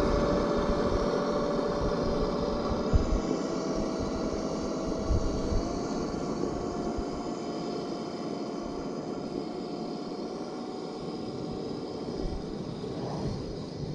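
Simulated engine sound from a Sense Innovations ESS Dual Plus speaker system on a Traxxas TRX4 RC crawler, a steady whine that steps up slightly in pitch twice, fading as the truck moves away. Wind buffets the microphone.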